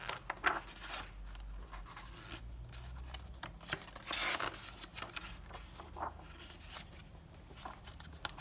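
Paper pages of a bound instruction booklet being turned and pressed flat by hand: a series of short papery swishes and rustles, the strongest about four seconds in.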